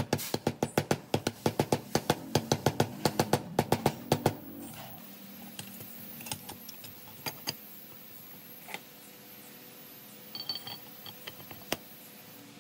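A rapid run of sharp taps, about six a second, that stops about four seconds in, followed by a few scattered clicks.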